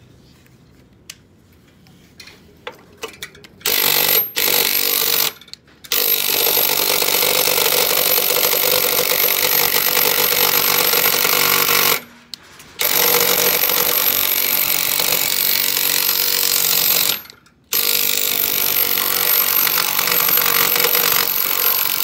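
Cordless impact driver hammering at a seized screw on an air-conditioner outdoor unit, a couple of short bursts about four seconds in, then three long runs of several seconds each with brief pauses between. The screw will not turn until it finally shears off.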